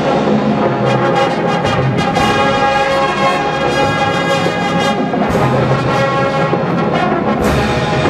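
Marching band playing live: the brass section sustains full chords over drum and percussion strikes.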